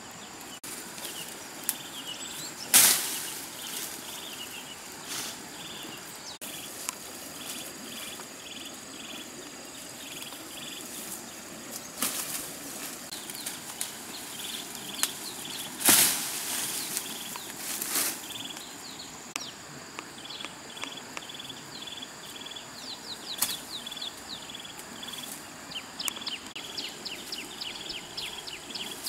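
Leafy branches rustling and shaking as they are pulled down by hand, in several brief loud bursts. Underneath, insects keep up a steady high drone and a repeated short chirping.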